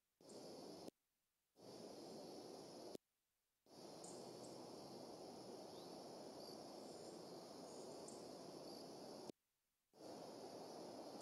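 Near silence: faint, steady outdoor hiss from a nest-cam microphone, cutting out to dead silence four times, with a few faint high-pitched chirps near the middle.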